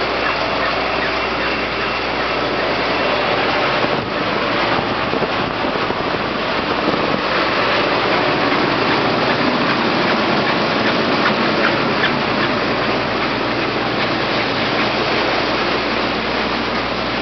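John Deere 9760 STS combine running close by, a steady loud mechanical din with no change in speed.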